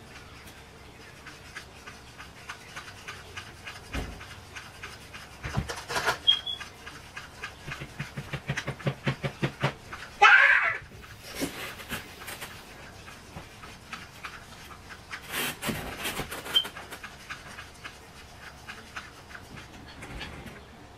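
Paintbrushes tapping, clicking and scraping in small plastic paint bowls, with a quick run of taps, about six a second, around eight seconds in, and one brief louder squeak just after.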